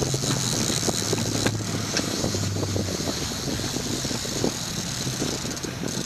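Twin Mercury outboard motors running at trolling speed, a steady hum whose pitch drops about half a second in, over the rush of wind and water.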